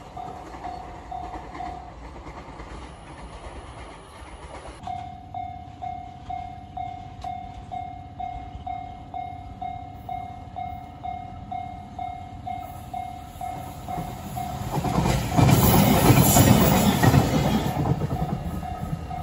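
Japanese railway level-crossing warning bell dinging steadily about twice a second. About three-quarters of the way in, a train's loud rushing rumble swells over it and begins to fade.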